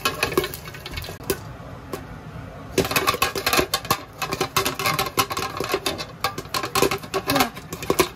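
Popcorn kernels popping in a lidded frying pan as it is shaken on the stove: a few pops at first, then rapid, dense popping from about three seconds in.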